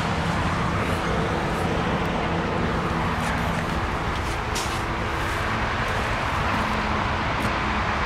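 Steady outdoor traffic and vehicle noise with a low, even hum underneath.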